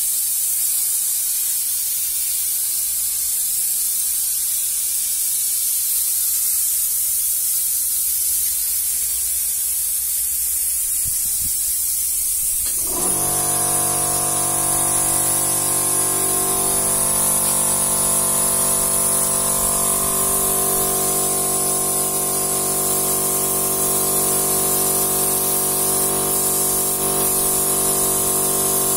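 Compressed-air paint spray gun hissing steadily as it sprays paint onto a wall. About halfway through, a steady hum with several tones sets in and keeps going.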